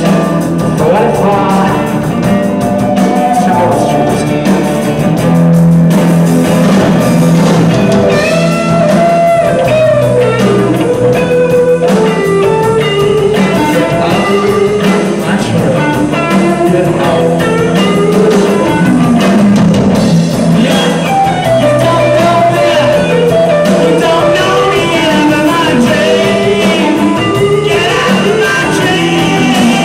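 Rock band playing live: electric guitars and drum kit with a melodic lead line on top, picked up loud and rough by a camcorder microphone.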